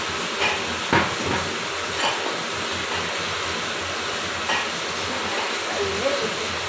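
A steady hiss runs throughout, with a few short knocks and clatters of pots and pans being handled, the sharpest about a second in.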